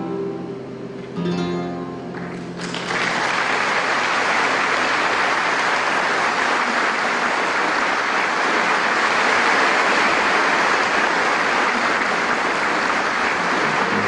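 Solo acoustic guitar plays its last plucked notes, then audience applause breaks out suddenly under three seconds in and carries on steadily.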